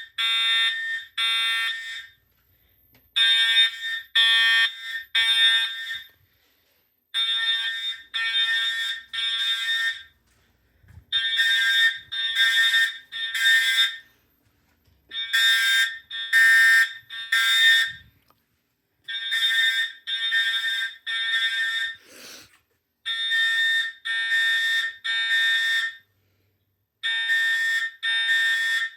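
Edwards Integrity fire alarm horns sounding the temporal code 3 evacuation pattern: groups of three short, loud blasts, about half a second each, repeating roughly every four seconds with a pause between groups.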